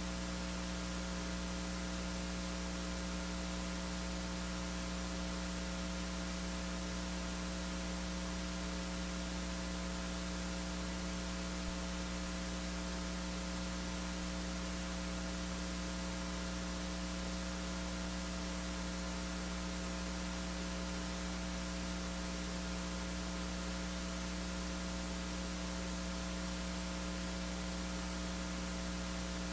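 Steady electrical mains hum with a stack of its overtones and a faint hiss under it.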